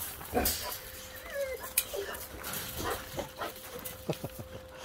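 Excited boxer dogs whining and giving a few short yips, with some scattered clicks.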